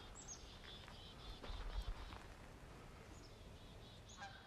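Faint, scattered bird chirps over quiet woodland ambience, with a brief low rumble in the middle. Near the end a goose starts honking.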